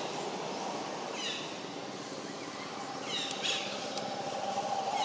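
Outdoor ambience: two clusters of short falling chirps, about a second in and again after three seconds, over a steady background drone.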